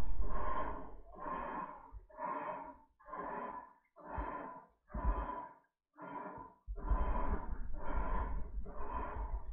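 Electrolux LTD11 top-loading washing machine agitating: the agitator swishes the water back and forth in regular strokes about once a second, with the motor's low hum under several strokes. The repairer judges this motor must also be replaced.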